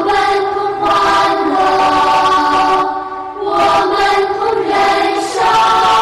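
Many voices singing a slow Buddhist devotional chant in unison, in long held notes grouped into phrases of two to three seconds with short breaks between.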